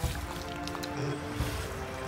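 Background music with held notes changing every half second or so. Under it, water splashes and churns as an RC jet boat drops into the creek and pulls away, loudest at the start.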